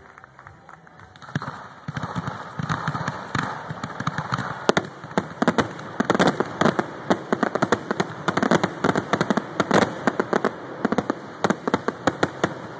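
Aerial fireworks going off in a rapid barrage: crackling and many sharp bangs in quick succession, starting about a second and a half in and stopping near the end.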